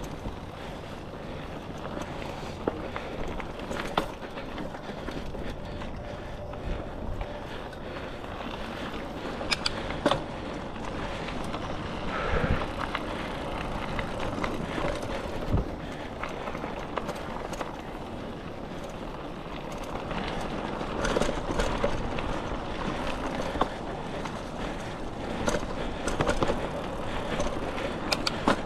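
Mountain bike rolling over a dirt trail: steady tyre and riding noise, with a knock or rattle now and then as it goes over bumps.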